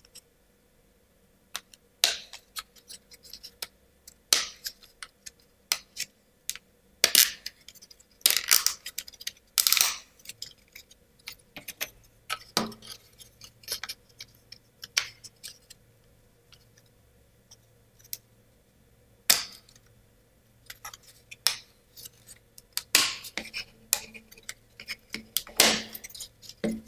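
Wooden parts of a Ugears Card Holder model kit being handled and pressed into their slots: irregular sharp clicks and knocks of wood on wood, with quiet gaps between.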